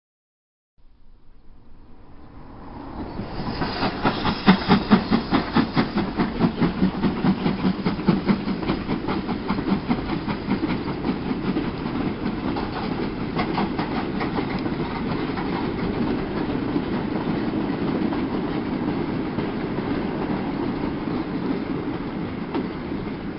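Steam locomotive, an LMS Fairburn 2-6-4T tank engine, making noise as it pulls away with a mixed goods train: loud, even exhaust beats about two to three a second, strongest a few seconds in. These ease into a steady rumble and clatter of goods wagons rolling by.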